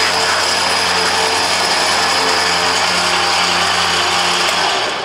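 Rough Country electric winch pulling in its synthetic rope under the wireless remote, its motor and gear train running at a steady whine. Near the end it winds down and stops a moment after the button is let go.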